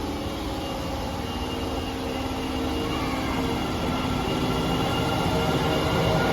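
Osaka Metro Tanimachi Line subway train running through an underground station, its wheel and motor noise carrying several steady whining tones and growing louder as it draws near.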